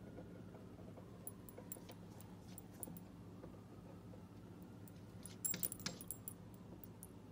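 Metal tag on a cat's collar jingling in short clinks as the cat paws at the window, with a few faint clinks early on and a louder cluster about five and a half seconds in. A low steady hum runs underneath.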